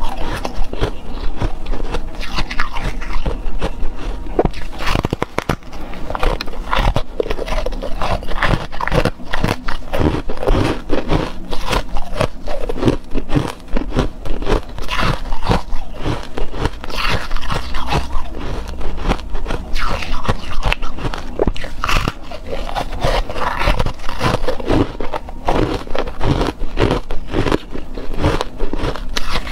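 A person biting and chewing pieces of ice close to a clip-on microphone: continual loud crunching and crackling as the ice breaks between the teeth.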